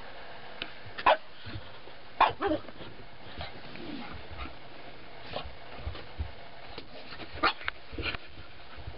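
Pug puppy giving short, sharp barks at its own reflection in a mirror, a few at a time with pauses between, the loudest about a second in, about two seconds in and near the end.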